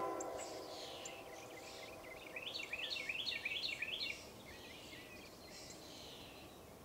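Wild birds singing: thin downward-sliding whistles, then a quick run of repeated rising-and-falling notes in the middle, over a faint steady outdoor background hiss.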